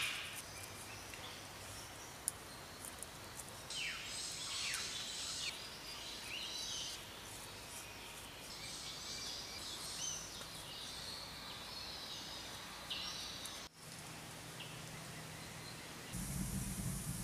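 Quiet outdoor bush ambience with birds calling in short falling chirps, and soft rubbing and patting of hands smoothing wet clay. A louder low rumble comes in near the end.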